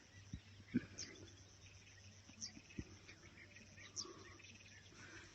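Birds calling faintly, one repeating a short, high, downward-sliding note about every second and a half, over softer chatter, with a few low thumps.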